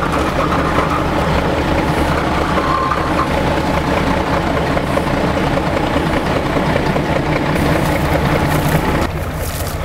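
Heavy crane engine running steadily under load while the crane lifts the locomotive. It drops in level and thins out about nine seconds in.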